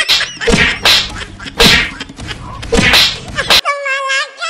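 A rapid series of loud slaps and whacks landing on a person's head, about eight blows in three and a half seconds. They stop suddenly, and a snickering laugh follows near the end.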